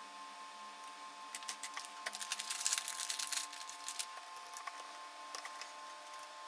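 Tiny screws and small metal tools clicking and ticking while an iPhone 6's five display-connector screws are taken out. A dense flurry of clicks comes about two to three and a half seconds in, with scattered single ticks around it, over a faint steady high tone.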